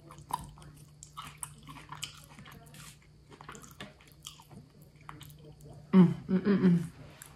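Close-up mouth sounds of a person chewing sushi: soft, wet smacks and clicks. About six seconds in there is a short, louder hum through a closed mouth.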